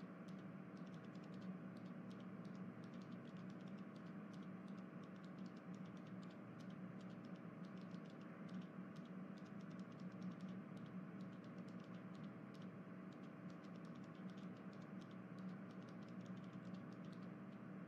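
Faint, rapid, irregularly spaced clicking over a steady low hum.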